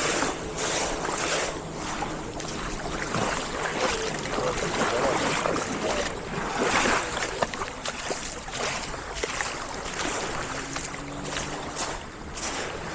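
Sea waves washing onto the shore in a steady wash that swells and falls every second or so, with wind buffeting the microphone.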